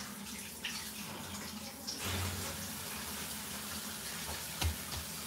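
Kitchen tap running steadily, with a couple of soft thumps near the end.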